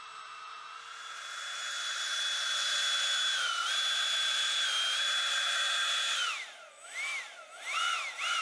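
Electric ducted fan (64 mm, six-blade, on a 4500KV brushless motor) whining at high speed: it spools up about a second in and holds a steady high whine, then is throttled back sharply and blipped up and down a few times near the end.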